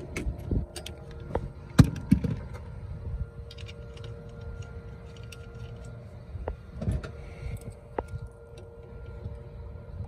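Running rooftop HVAC unit humming steadily, its compressors on while refrigerant pressures stabilise. Over the hum come small metallic clicks and taps as a brass service-port cap is fitted over a Schrader valve on the copper refrigerant line and tightened with pliers. The sharpest click comes about two seconds in.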